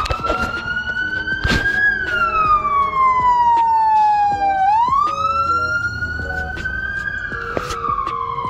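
A siren wailing: its pitch rises quickly and then falls slowly over about three seconds, twice, with a few short steady notes underneath.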